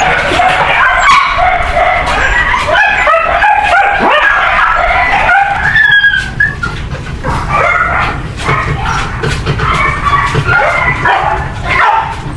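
Several dogs yapping and barking in quick, overlapping short calls, with one longer drawn-out call about six seconds in.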